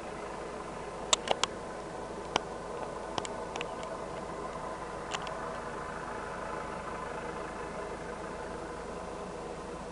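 Distant helicopter's steady engine drone, with a few sharp clicks in the first five seconds.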